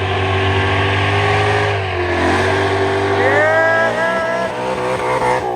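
Car engine revving hard under a steady hiss, its pitch dipping about two seconds in and then climbing again.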